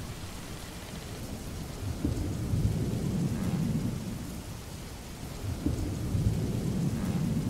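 Thunderstorm ambience: steady rain with low rolling thunder that swells about two seconds in and again near the end.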